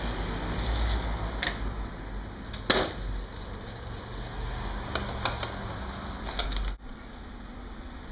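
Plastic clicks and knocks from handling a snow foam lance and its bottle, with one sharp click a little under three seconds in, over a low rumble.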